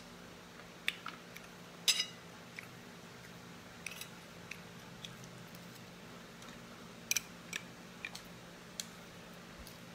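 Eating sounds: short, sharp clicks and clacks of green mussel shells and a spoon being handled, scattered irregularly, loudest about two seconds in and again in a cluster about seven seconds in, over a faint steady hum.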